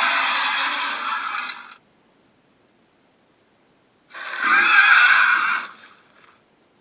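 Movie dragon roar sound effect: a screeching roar that cuts off about two seconds in, then after a pause of about two seconds a second roar lasting under two seconds, trailing off.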